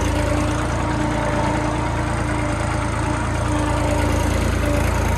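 Tractor diesel engine running steadily as the tractor drives across the field, heard from the driver's seat.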